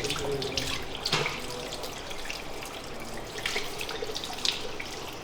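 Tap water running into a basin, splashing unevenly, with one sharp knock about a second in.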